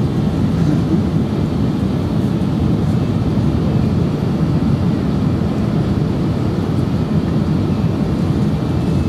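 Steady low rumble inside the passenger cabin of an Airbus A380 descending to land: engine and airflow noise, unchanging throughout.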